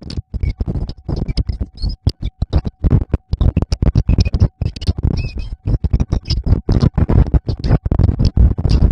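Wind buffeting the microphone in rapid, choppy gusts of low rumbling noise, with a few faint short high chirps in the background.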